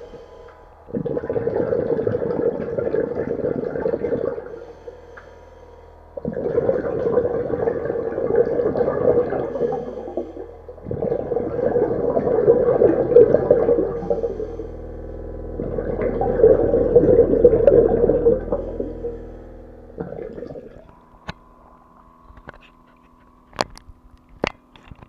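A diver breathing out through a scuba regulator underwater: four long bursts of bubbling, a few seconds each, with short pauses between breaths. About 21 seconds in the microphone comes out of the water, leaving a faint steady hum and a few sharp clicks.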